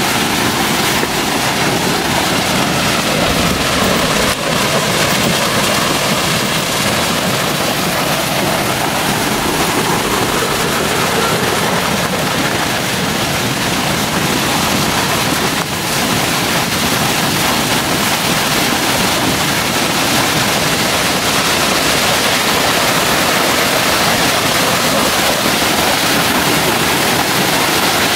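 Waterfall: loud, steady rush of falling water.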